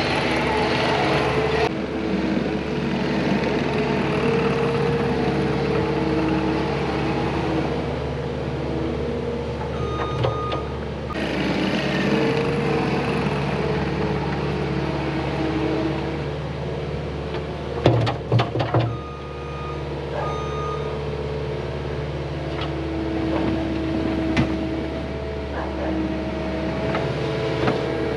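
Cat 259D compact track loader's diesel engine running under changing load while moving dirt, with short backup-alarm beeps now and then. A quick cluster of loud knocks comes about two-thirds of the way through.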